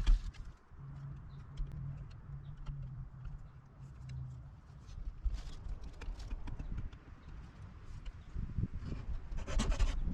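Handling noises of a chainsaw sharpening kit and its paper instructions being unpacked and sorted: scattered light knocks and clicks, with a louder cluster of knocks near the end. A low steady hum runs beneath from about a second in to about four and a half seconds.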